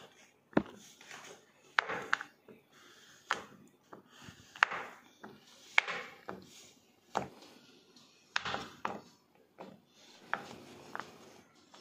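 Kitchen knife cutting a bar of white cooking chocolate on a wooden cutting board. The blade presses through with a short crunch, then knocks on the board: about a dozen irregular knocks.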